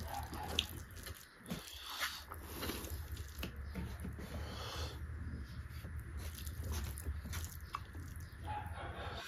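Close-up chewing and biting sounds of someone eating beef curry, with scattered small wet clicks and smacks of the mouth, over a steady low hum.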